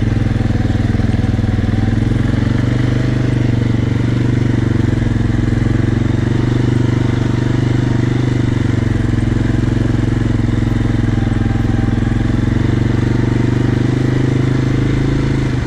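Small off-road utility vehicle's engine running steadily while under way, an even low drone that holds the same pace throughout.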